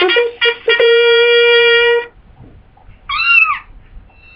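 Played-back sound effects: a brass-like tune of quick short notes ends on a long held note that stops about two seconds in. About a second later comes one short meow-like cry that rises and falls in pitch.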